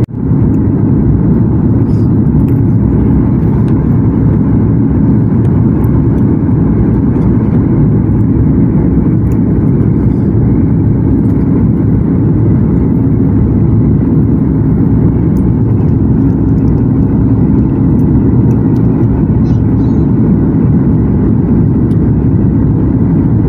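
Passenger-cabin noise of a Southwest Airlines Boeing 737 on its descent: a loud, steady low-pitched noise from the jet engines and airflow, with a faint steady hum underneath.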